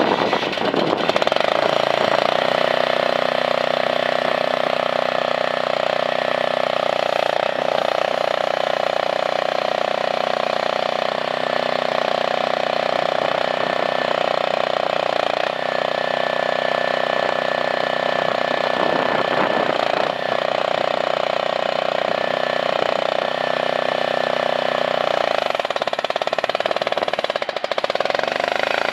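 Small engine of an AGT MX-MRW14 mini skid steer running steadily, with a few brief changes in its note along the way.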